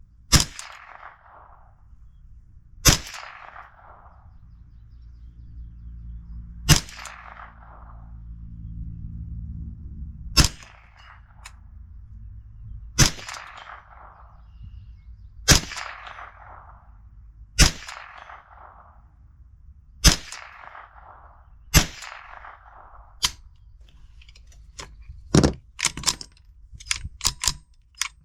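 About ten single gunshots fired slowly, two to four seconds apart, each trailed by a short ring. Near the end comes a quicker run of sharp metallic clicks.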